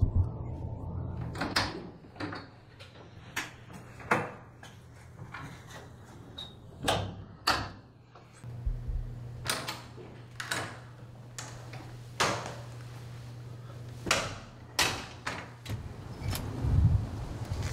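Door handling: a string of irregular sharp clicks and knocks, like a latch and a door being worked, over a steady low hum.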